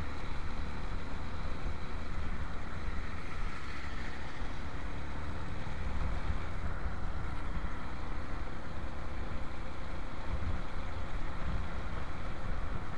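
Motorcycle ridden along a road: a steady low rumble of wind and road noise on the microphone, with the engine running underneath and a faint steady high whine.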